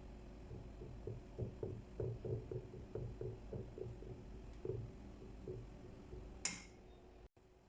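A run of soft, dull knocks, about three to four a second, typical of kitchen work such as chopping or tapping on a board, followed by one sharp click near the end.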